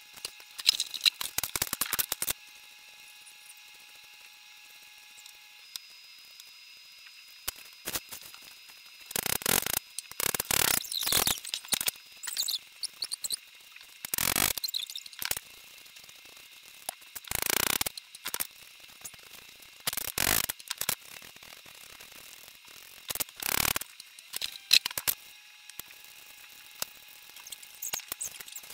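Peeling potatoes and a courgette: short bursts of quick scraping strokes against the vegetable, separated by pauses, with knife cuts on a wooden chopping board near the end.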